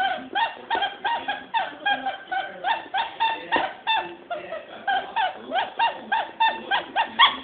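Squeaky rubber duck toy squeaked over and over by a dog biting it, in a quick run of about three short squeaks a second.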